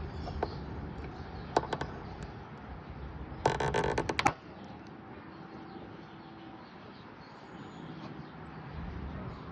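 A few light clicks from the dent puller bracket as its nut is turned. About three and a half seconds in comes a sharp, crackling snap lasting under a second: the hot-glue pulling tab breaking loose from the car's body panel under the puller's tension.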